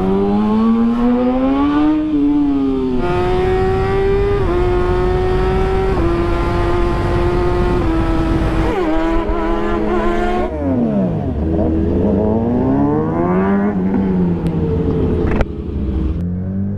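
Kawasaki Ninja ZX-6R's inline-four engine running under throttle while riding. Its pitch climbs, holds nearly level with small steps, drops sharply about ten seconds in, then climbs again.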